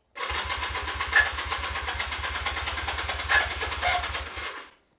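Honda CB250 motorcycle engine being cranked over by its electric starter for about four seconds with the choke on, turning over evenly but not firing, then stopping. The bike's battery is dead, so it is cranking off a jump pack.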